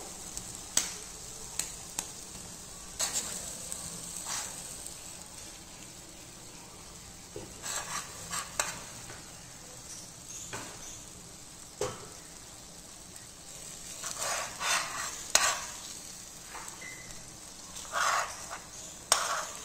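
Tomato-onion masala sizzling steadily in a non-stick kadhai while a steel spoon scrapes and clinks against the pan, with short clattering knocks now and then.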